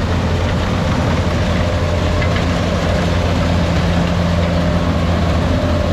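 Kubota rice combine harvester's diesel engine running at a steady speed while the machine cuts rice, a constant low hum.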